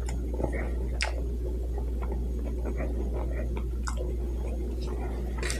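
A person chewing food with the mouth closed: soft, wet little clicks and squishes, with a few sharper ticks, over a steady low hum.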